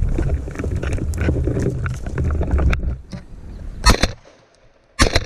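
Rumbling wind and handling noise on a gun-mounted camera as the shotgun is swung, then two shotgun shots about a second apart near the end, the loudest sounds here.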